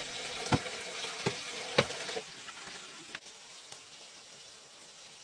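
Four dull thuds, about half a second to three-quarters of a second apart, of a wooden pole pounding the earth around upright bamboo posts, over a steady hiss. After about two seconds the thuds stop and it goes quieter, with one fainter knock.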